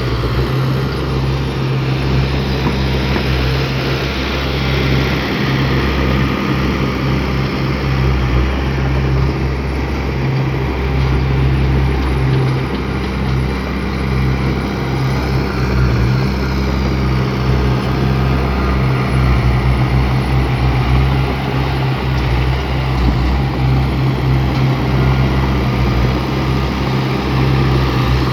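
Bulldozer's diesel engine running steadily under heavy working noise, with mechanical rattling.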